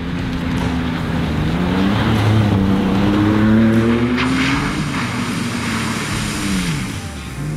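Second-generation Ford Ranger Raptor's 3.0-litre twin-turbo V6 revving hard under off-road driving. The engine pitch climbs through the middle and drops sharply near the end, with a hiss of tyres throwing sand and water.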